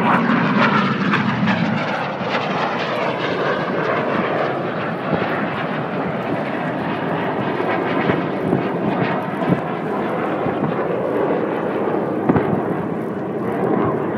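BAE Hawk jets of the Red Arrows flying past: a loud, continuous jet rush, strongest in the first two seconds, then holding steady.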